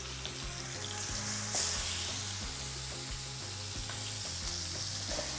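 Marinated chicken thighs sizzling in hot olive oil as they are laid into the pot to brown, with a louder hiss about one and a half seconds in.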